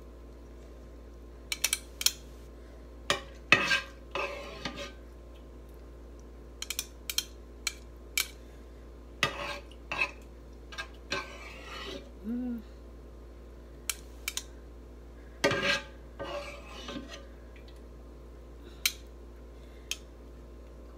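A metal spoon and a plastic spatula knock and scrape against a pan while seafood is served, in scattered short clinks and scrapes over a steady faint hum.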